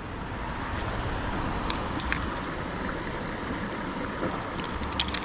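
River water running steadily, with a few short sharp clicks and ticks about two seconds in and again near the end.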